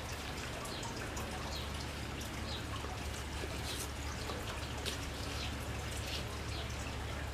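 Faint clicks and taps of white plastic drone parts being picked up and handled, over a steady background hiss with a low hum.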